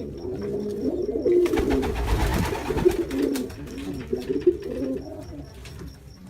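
Jacobin pigeon cooing, a run of low, wavering coos. A short rustling noise comes about two seconds in.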